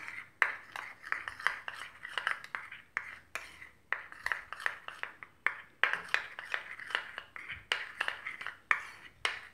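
Cocoa powder and oil being stirred together in a bowl, the utensil clinking and tapping against the bowl in quick, irregular strokes, several a second.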